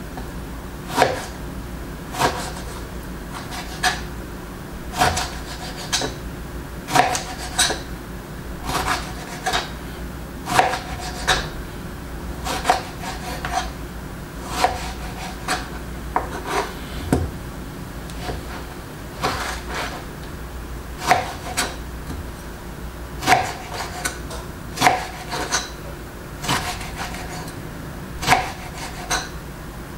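Kitchen knife cutting lemons on a cutting board: sharp knocks of the blade against the board at an uneven pace, about one a second, over a steady low hum.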